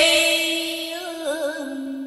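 A woman chanting Vietnamese verse, holding the last syllable of a line. Her pitch wavers and steps down about one and a half seconds in, and the voice slowly grows fainter.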